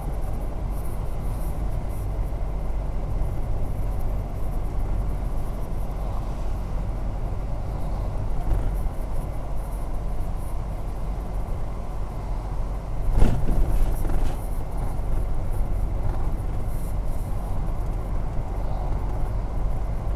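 Steady road noise of a car driving on a wet, snowy road, heard from inside the cabin: tyre and engine rumble, with one brief louder thump about two-thirds of the way through.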